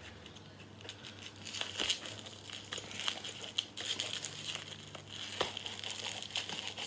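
Scissors cutting into a plastic-wrapped cardboard box, with crinkling of the plastic and scattered sharp snips and crackles.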